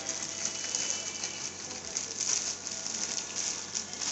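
Facial oxygen machine's spray handpiece hissing steadily, a spattery jet of air and mist.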